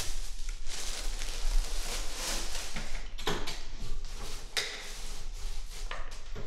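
Clinks and rustles of handling at a breakfast table: a fork on a plate and objects moved at a wooden sideboard, over a steady low hum.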